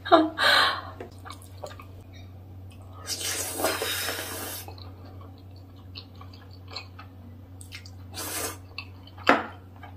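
Person slurping ramen noodles from a spicy octopus, intestine and shrimp stew in one long slurp about three seconds in, with wet chewing and shorter slurps around it.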